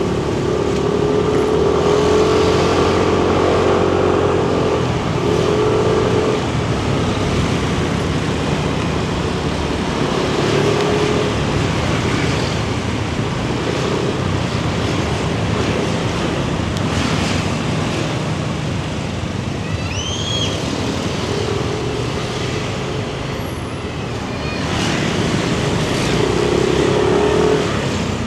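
Yamaha Nmax 155 scooter's single-cylinder engine running under way, its note rising and falling with the throttle several times, over steady road and traffic noise. About twenty seconds in, a short high chirp rises and falls.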